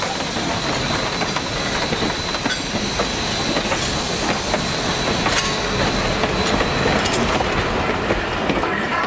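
Train of passenger coaches rolling past close by: a steady rumble of wheels on rail with irregular clicks as the wheels cross rail joints.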